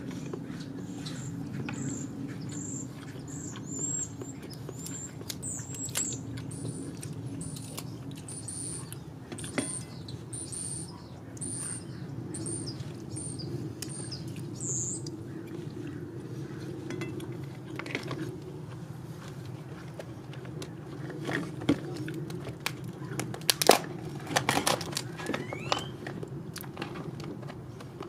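Sharp cracks and snaps of a cooked California pink crab's shell being pried apart by hand, loudest about two-thirds of the way through. Earlier, a small bird chirps repeatedly over a steady low hum.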